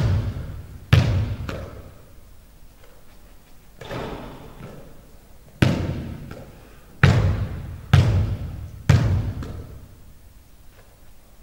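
A basketball bouncing on a hardwood gym floor, about seven sharp, irregularly spaced bounces, each ringing on in the echo of the large hall.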